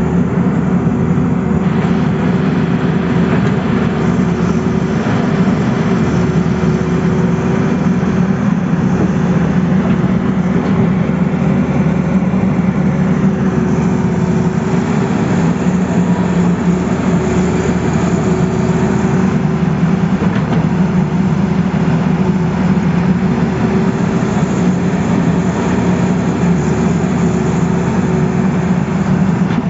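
Tata Hitachi crawler excavator's diesel engine running steadily under working load as the boom and bucket dig soil, a constant low hum with a steady higher tone over it.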